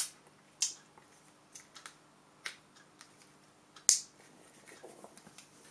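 Sharp clicks and taps of small tools being handled and set down on a workbench during soldering work, four distinct ones with fainter ticks between, the loudest just before four seconds in, over a faint steady hum.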